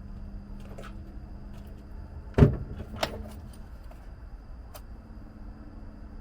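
Hand tools and loose metal parts being handled: a few light clicks and clinks, with one sharp knock about two and a half seconds in and a smaller one about half a second later.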